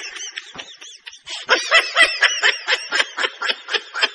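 A laughing sound effect: a rapid, high-pitched snickering laugh in quick repeated pulses, softer for the first second, then louder at about four to five a second.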